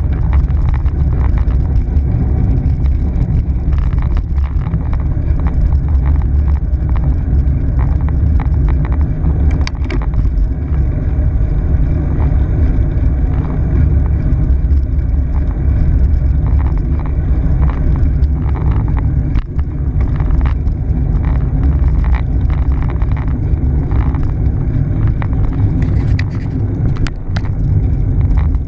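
Steady low wind and road rumble on a handlebar-mounted camera's microphone while a bicycle rides along a paved street, with scattered clicks and rattles from the bike and mount.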